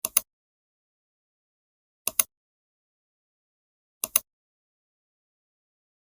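Computer mouse clicks in near silence: three quick double clicks, about two seconds apart.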